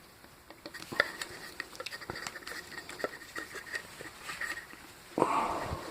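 Hands and tools working apart a metal paging-speaker driver unit: scattered small clicks, taps and scrapes of metal and plastic, with a louder scrape near the end.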